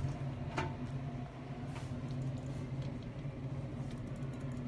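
Steady low hum inside an elevator car standing with its doors open, with a sharp click about half a second in and a fainter one a second later.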